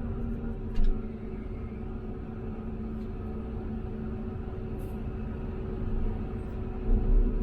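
Hyundai HX330A excavator's diesel engine running steadily, heard from inside the operator's cab, with a short knock about a second in and a heavier low thump near the end.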